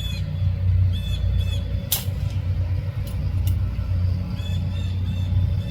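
A single sharp shot from a .177 BRK Ghost PCP air rifle about two seconds in, followed by two faint clicks, over a steady low rumble.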